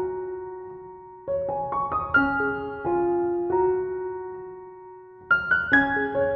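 Soft background piano music: short runs of notes, each left to ring and fade slowly before the next run begins about five seconds in.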